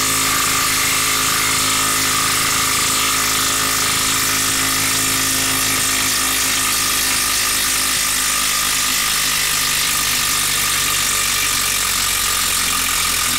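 DeWalt cordless impact wrench hammering steadily under load as it backs out a long screw seated tight in a log, one the impact drivers could not remove.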